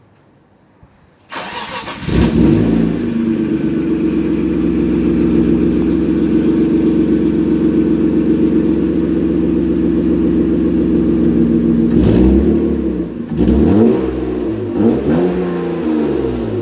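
BMW E36 323i's M52B25 straight-six, breathing through sport headers and an aftermarket muffler, cranked by the starter and catching about two seconds in, then idling steadily. Near the end it is revved with a few quick throttle blips.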